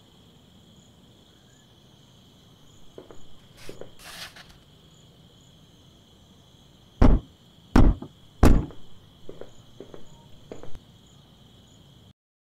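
Crickets chirping steadily, with a rustle as a scroll is handled about three to four seconds in. About seven seconds in come three heavy thuds less than a second apart, then a few lighter knocks. All sound cuts off abruptly near the end.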